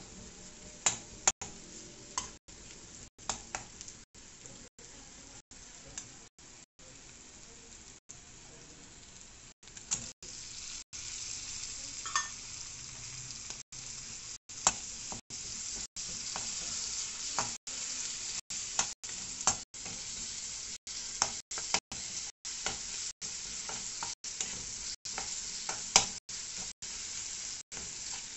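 Onion, tomato and chilli masala sizzling in hot oil in a non-stick wok while a spatula stirs and scrapes it, with sharp clicks of the spatula on the pan. The sizzle gets louder about ten seconds in. The sound is broken by many brief dropouts.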